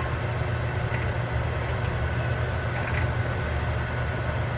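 A steady low hum under a faint, even hiss of garlic butter sauce cooking in a pan as it is stirred.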